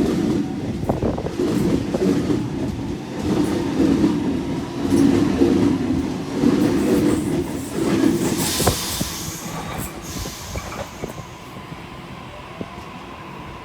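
Sydney Trains Waratah Series 2 (B set) electric train pulling out of a station. Its running sound fades as it draws away, with a brief hiss about eight seconds in.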